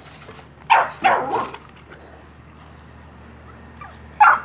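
A dog barking: two barks close together about a second in, and another sharp bark near the end.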